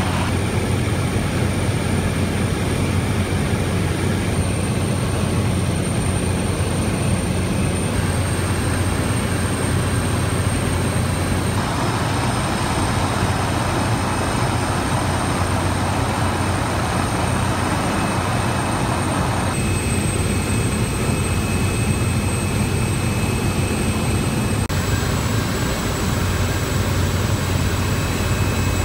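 Steady drone of a seaplane's propeller engine heard from inside the cabin, a low hum with a thin high whine over it, its tone shifting abruptly a few times.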